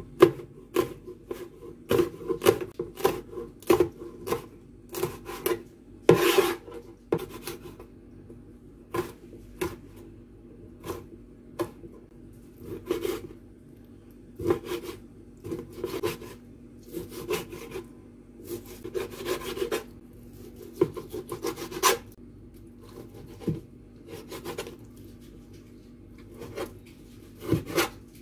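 Chef's knife chopping on a plastic cutting board: irregular knocks of the blade against the board, one to two a second, mixed with longer rasping strokes as the knife slices through red chilies and then raw chicken.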